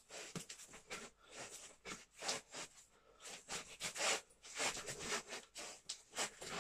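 A boxer's sharp, hissing exhales, forced out in quick irregular bursts as he throws punches in gloves.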